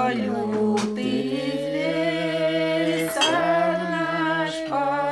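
Unaccompanied voices, women and men together, singing a slow chant in long held notes, each note changing every second or two.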